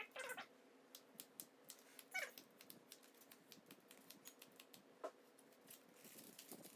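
Near-quiet room with scattered faint clicks and ticks, broken by a short animal-like call that falls in pitch about two seconds in and a briefer one near five seconds.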